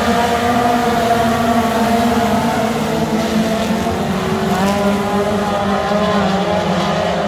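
A pack of Pure Pony class dirt-track race cars racing around the oval, several engines running hard together, their pitches rising and falling as they go through the turns.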